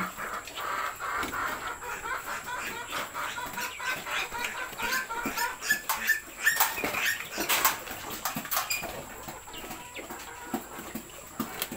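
Newborn piglets squeaking in short, high chirps again and again, with scattered knocks from the pen.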